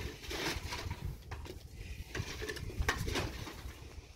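Scattered light metallic clinks and knocks from hand work with metal tools and parts, over a steady low rumble.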